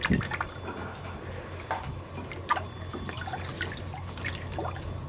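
Water splashing and dripping in a plastic wash bin as hands rinse mud-covered photo prints, with irregular small splashes and drips over a steady low hum.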